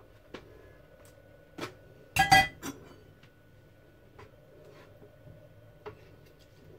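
Metal kitchenware clinking: one brief ringing clatter about two seconds in, with a few lighter taps and knocks around it.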